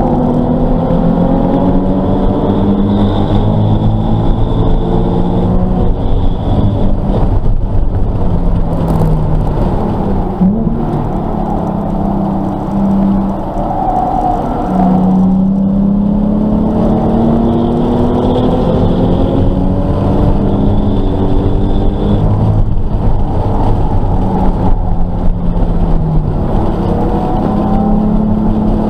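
Nissan 370Z's 3.7-litre VQ V6 engine under hard acceleration, heard from inside the cabin: its pitch climbs for several seconds at a time, then drops at gear changes and lifts for corners, over constant road noise.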